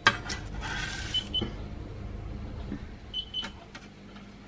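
Metal slotted spatula scraping under cookies on a paper-lined baking tray and clicking against the wire cooling rack: a sharp click at the start, a short scrape about half a second in, then a few lighter clicks.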